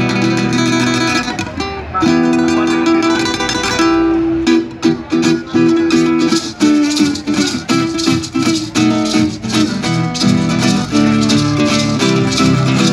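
Live acoustic music: an acoustic guitar strummed and picked in a steady rhythm, with maracas shaking along.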